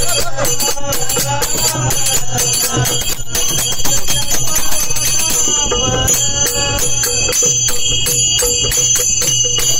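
Group devotional singing of a Marathi abhang, accompanied by brass hand cymbals (taal) ringing in a quick, steady beat and hand drums. The voices are strongest in the first half, and the clashing cymbals dominate near the end.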